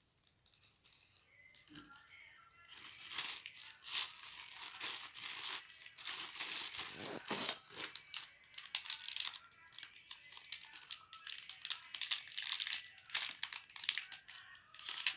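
Plastic packaging crinkling and tearing as it is handled and unwrapped by hand. It starts about three seconds in and goes on as dense, irregular crackling.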